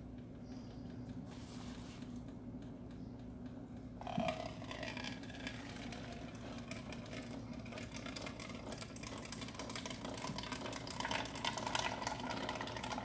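Red silicone spatula stirring and scraping beaten eggs in a nonstick skillet: a busy, scratchy rustle that starts about four seconds in and keeps on. A low steady hum runs underneath.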